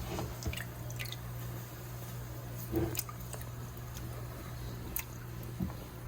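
Wet sand being squeezed and handled in the hands, with a few soft squelches and drips of water.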